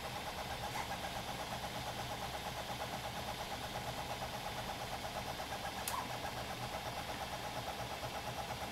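Stepper motors of a HyperCube-style CoreXY 3D printer whining as the print head moves back and forth at high speed, at 200% of a 300 mm/s print speed. The tone pulses rapidly and evenly over a low steady hum, with a single sharp click about six seconds in.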